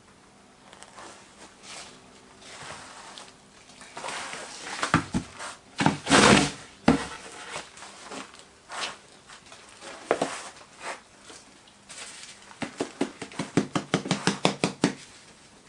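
Greensand moulding work: a metal moulding flask handled and turned over on a wooden moulding board, with knocks and a loud scraping rush of loose sand about six seconds in. Near the end, a quick even run of light taps, about six a second, as parting powder is shaken from a bag over the mould.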